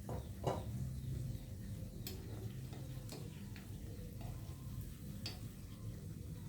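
Scattered sharp clicks and taps, about seven, the loudest about half a second in, over a low steady hum.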